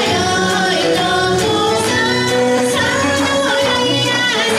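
Kawachi ondo performance: a male singer's voice holding and sliding between notes over band accompaniment with a steady beat.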